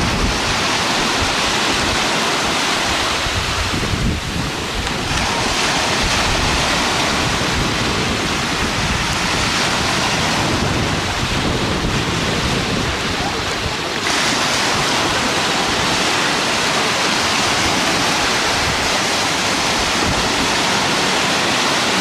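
Sea waves washing and breaking on the shore, a steady rush of surf, with wind buffeting the microphone in a low rumble.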